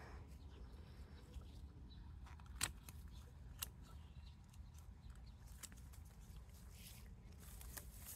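Hand pruning shears snipping small sucker shoots, a few short sharp snips, the loudest about two and a half seconds in, over a faint low rumble.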